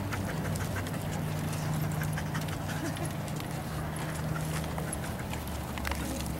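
Dogs' claws clicking on a wooden deck as a group of dogs walks about, many irregular light clicks over a steady low hum.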